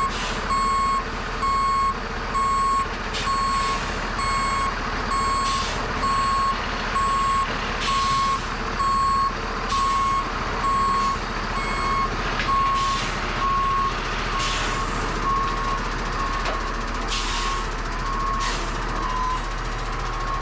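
Heavy vehicle's reversing alarm sounding a steady single-tone beep, repeated under a second apart, over a diesel engine running low and steady. A few short hisses come through at intervals.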